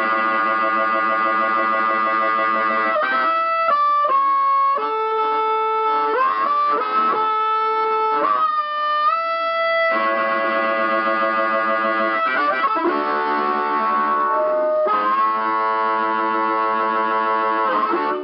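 Harmonica amplified through a small homemade box harp amp. It plays full chords, then a run of single notes with bent pitches, then chords again, stopping abruptly at the end.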